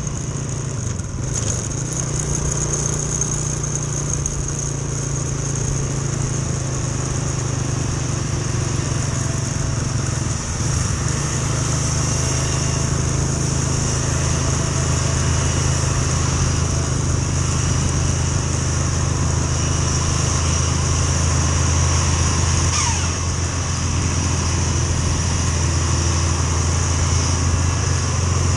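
Steady engine noise while riding uphill at speed, with a Scania 380 double-decker coach's diesel running just ahead, plus wind and road noise. The low engine note shifts about ten seconds in, then slowly grows louder.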